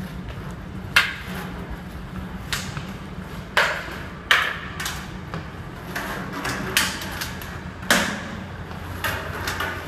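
Irregular sharp knocks and taps, roughly one a second, over a steady low hum, made while walking with a hand-held phone gripped so that a finger covers it.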